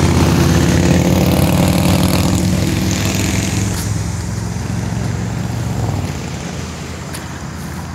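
A road vehicle's engine running close by, loudest at the start and fading away over the following seconds as it moves off.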